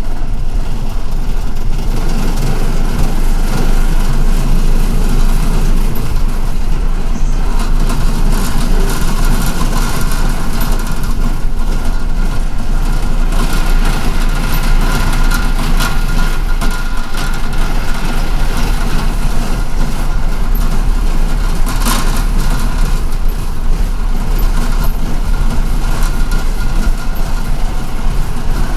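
MTA city bus heard from inside the cabin: steady engine rumble and road noise, with a faint whine partway through and a sharp knock about 22 seconds in.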